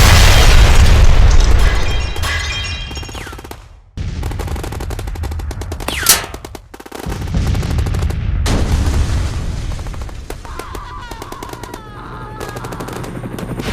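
Battle sound effects: rapid machine-gun fire under heavy booms. A loud blast at the start fades away over about four seconds, then the gunfire starts again, with a sharp crack and a brief falling whistle about six seconds in.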